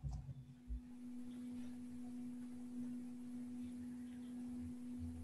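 A steady, sustained pure tone at a low-mid pitch, with a fainter overtone an octave above, holding an even level throughout. There are a couple of soft low knocks right at the start.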